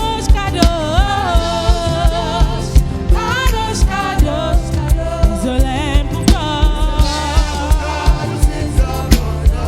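Live gospel worship music: voices singing with vibrato over a band with a steady kick-drum beat, about two beats a second.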